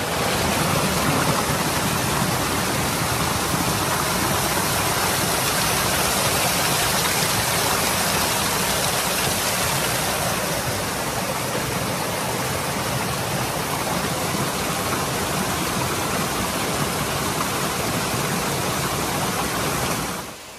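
Waterfall pouring and splashing onto a person standing beneath it, right at the phone's microphone: a loud, steady rush of falling water.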